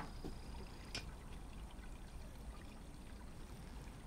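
Fuel pouring steadily into a vehicle's fuel tank through the filler neck, with a single small click about a second in.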